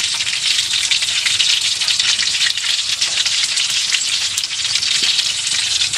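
Pork knuckle (crispy pata) deep-frying in hot oil: a steady, dense crackling sizzle.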